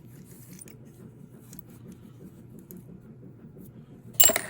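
Faint clicks of small metal carburetor parts and hand tools being handled, then one short, sharp metal clatter near the end.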